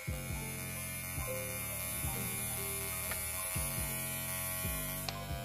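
ZsZ F39 cordless hair clipper running, a steady electric buzz. It sounds good but runs slower than a Wahl Cordless Senior.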